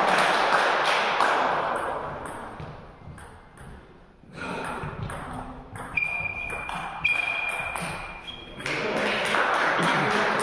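Table tennis rally: the ball clicking off bats and table in quick succession. A steady high squeal runs for a couple of seconds in the middle, and a wash of crowd noise rises near the end as the point finishes.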